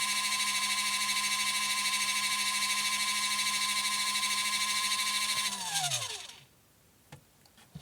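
Spin dryer motor of a 12 V portable foldable washing machine spinning steadily with a high whine, then winding down in pitch and stopping about six seconds in, followed by a brief quiet with a couple of small clicks.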